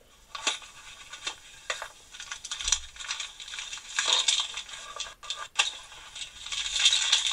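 Small metal tools clinking and rattling against each other as they are rummaged through and lifted out of a wooden workshop drawer, in a run of irregular clicks and clatters that gets busier about four seconds in and again near the end.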